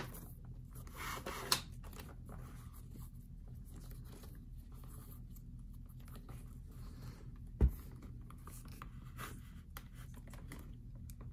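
Leather lace being worked through the web of a leather Rawlings baseball glove: soft scraping and rustling of lace against leather as the glove is handled. A single sharp knock about eight seconds in.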